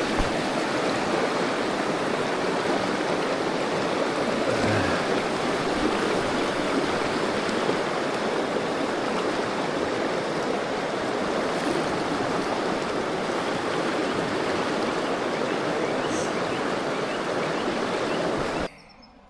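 River water rushing steadily. It cuts off abruptly near the end.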